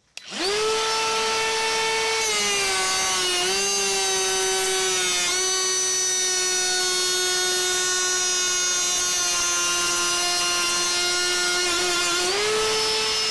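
Ryobi 18V ONE+ cordless trim router with a half-inch rabbeting bit, spinning up and then cutting a rabbet along a 2x4. It makes a steady high whine whose pitch drops about two seconds in and again about five seconds in as the bit loads up in the wood. The pitch rises again near the end as the bit comes free of the cut.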